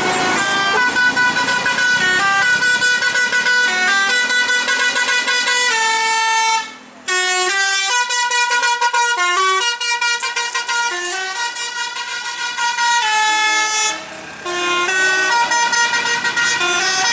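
Bus 'basuri' telolet horn, a multi-trumpet musical air horn, playing a tune of quick stepped notes, with two short breaks about seven and fourteen seconds in.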